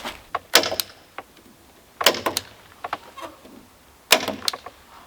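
Sharp clicks and knocks in short clusters about every two seconds, from work fixing a wind barrier membrane to the sauna wall.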